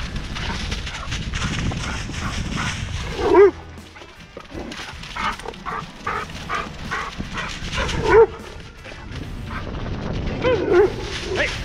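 A dog barking loudly several times: once about three seconds in, once about eight seconds in and twice in quick succession near the end, with quieter yips between. Under it runs the low rumble of mountain-bike tyres and wind on the trail.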